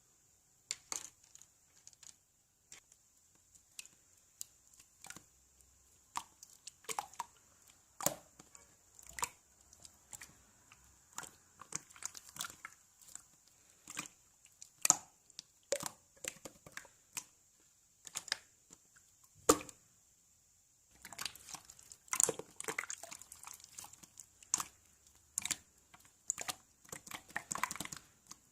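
Slime being squeezed, poked and stretched by hand, giving irregular sticky pops and clicks, with a denser run of crackling near the end.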